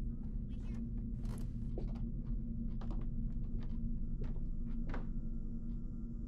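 Footsteps and light knocks scattered over a steady low hum.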